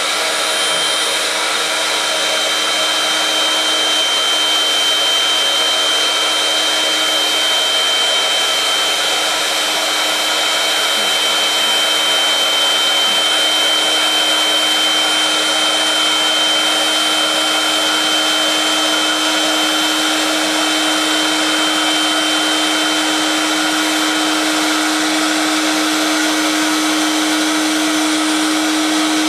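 Electric air pump running steadily with an even blowing noise and a low hum that grows stronger in the second half, as when inflating a boat.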